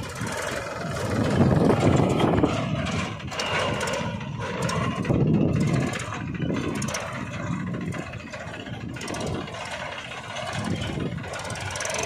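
Small engine of a homemade mini tractor running as it drives along, louder for a moment about two seconds in and again about five seconds in.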